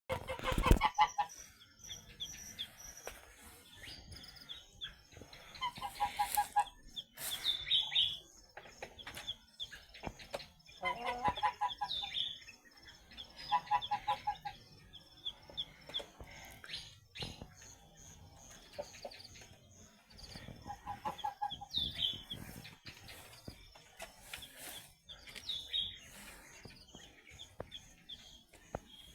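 Chickens clucking in short clusters every few seconds, with brief high chirps in between. A loud bump right at the start.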